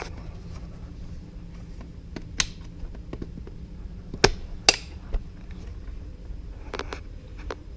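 A few sharp clicks and light taps from a power probe and test leads being worked at a fuse box, over a steady low hum. The two loudest clicks come close together about four seconds in.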